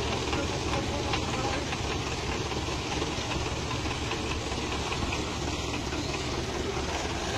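Belarus tractor's diesel engine idling steadily, a low even rumble.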